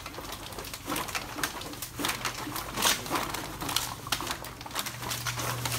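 Empty plastic bottles and cans rattling and crinkling in a clear plastic trash bag as it is carried, with irregular clicks and knocks. A steady low hum sits underneath, louder near the end.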